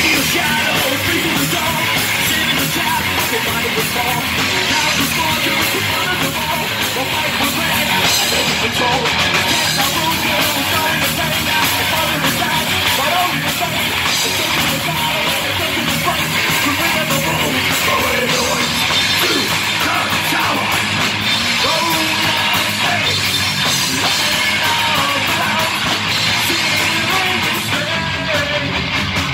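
Live heavy metal band playing loud and without a break: distorted electric guitars, bass and drum kit, with a vocalist shouting into the microphone over the top.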